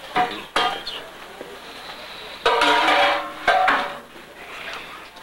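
Metal kitchen pans clanking several times at irregular intervals, each clank ringing on briefly.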